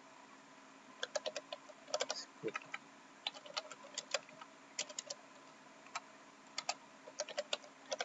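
Computer keyboard typing: irregular clusters of quick keystrokes, with a quiet second at the start and short gaps between bursts, over a faint steady hum.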